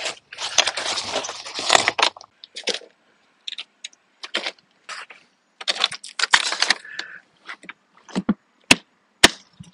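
Gear being packed into a hard plastic cargo case: the nylon life jackets and their straps rustle as they are pushed in, then the lid is shut with a few sharp clicks near the end as its latches snap closed.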